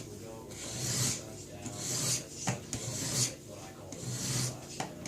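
Sharpening stone of a guided fixed-angle knife sharpener rasping across a kitchen knife's edge in repeated push strokes, about one a second, with a couple of light clicks. It is grinding away the factory edge to set a new, steeper bevel of about 24 degrees.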